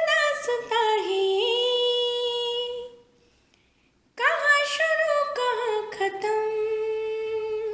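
A woman singing unaccompanied: two long phrases of held notes that glide between pitches, with a pause of about a second between them.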